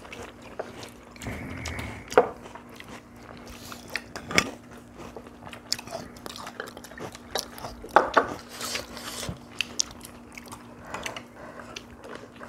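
Several people eating Korean side dishes: chewing and crunching, with scattered sharp clicks of chopsticks and spoons against bowls and plates, the loudest about two, four and eight seconds in.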